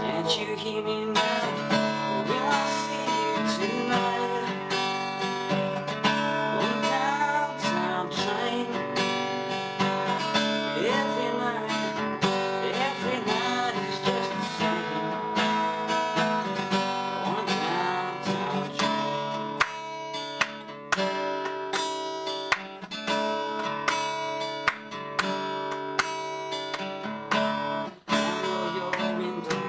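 A man singing along to his own strummed acoustic guitar; a little past halfway the voice stops and the guitar carries on alone.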